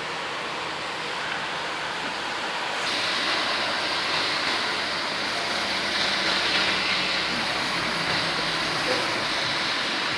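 Storm wind and rain making a steady rushing hiss, which grows louder about three seconds in.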